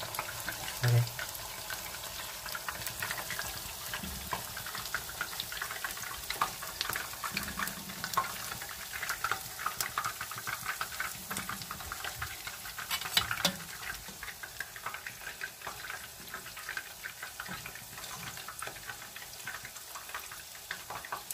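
Fish cakes frying in a pan of oil: a steady sizzle with frequent small crackles and pops, a few louder ones about two-thirds of the way through.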